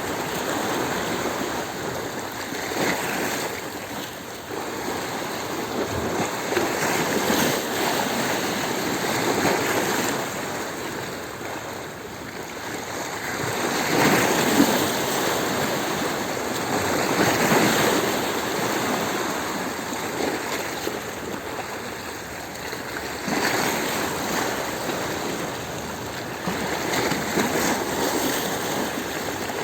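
Sea waves washing over a stony shore, the surf swelling and easing every few seconds as each wave breaks and draws back through the stones.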